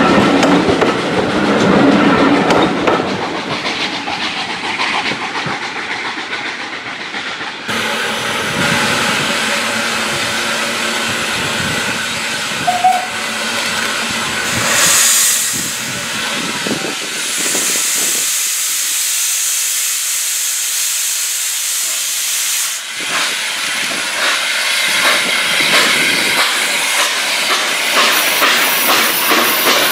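Passenger coaches rolling past with a clickety-clack over the rail joints. Then the Hunslet 0-6-0ST saddle tank locomotive WD132 "Sapper" standing and hissing steam, with a steady high hiss lasting about five seconds a little past the middle.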